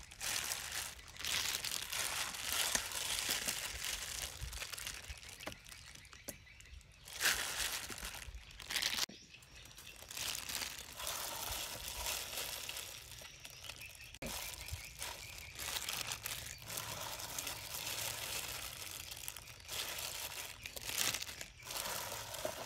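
Thin plastic food-prep glove crinkling and rustling as a gloved hand squeezes and mixes small fish pieces in a stainless steel bowl, irregular with a few louder swells.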